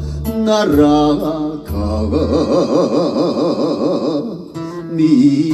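Music: a slow song with a singing voice holding long, wavering notes between sung lines.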